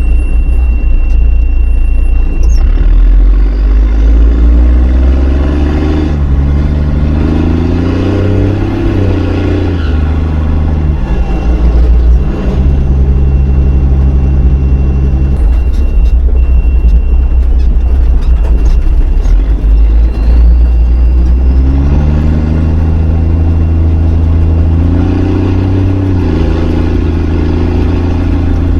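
5-ton military truck's engine running under load, its pitch climbing and falling several times as the truck works down a dirt mountain road in gear.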